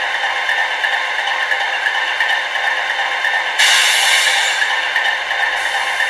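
Diesel engine sound from an H0 model locomotive's sound decoder, played through its small onboard speaker, running steadily with a rattling clatter. About three and a half seconds in, a loud hiss sets in for about two seconds.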